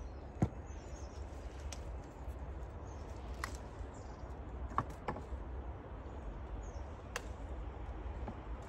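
Sunburst squash being picked from a raised bed into a plastic crate: a handful of short sharp clicks and light knocks spread through, with faint bird chirps over a low steady rumble.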